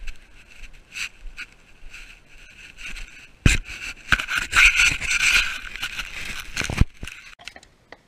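Rubbing, scraping and knocking of the camera being handled, right on its microphone. It starts with faint scratches and clicks, turns loud about three and a half seconds in, and cuts off suddenly about seven seconds in.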